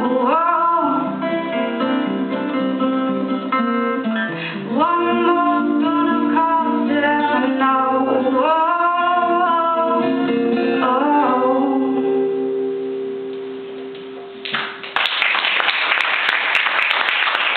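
A woman singing the last lines of a song over acoustic guitar, the final sung note held and fading out. Near the end, hand clapping starts and runs on about as loud as the music was.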